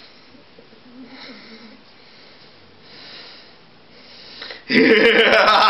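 Faint breathing and rustling behind the puppet stage. About five seconds in, a loud laugh starts in a puppeteer's voice, voicing the banshee puppet as it rises.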